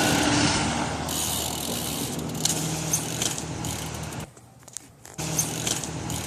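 BMX bike rolling on concrete: tyres running and the rear hub's freewheel ratcheting, with a few sharp clicks. The sound dies away briefly near the middle, then comes back.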